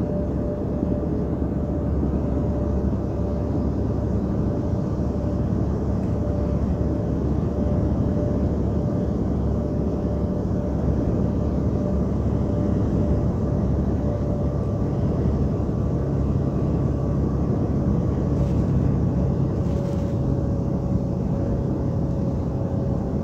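Steady drone of a semi-truck cruising at highway speed, heard from inside the cab: engine and tyre rumble with a faint steady whine.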